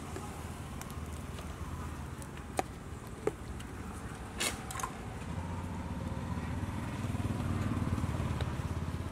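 Low engine rumble of street traffic, growing louder about halfway through, with a few sharp clicks and a brief rustle as plastic cups and lids are handled.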